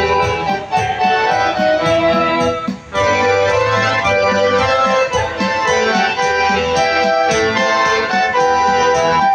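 Electronic keyboard playing held chords under a melody, with a short break about three seconds in.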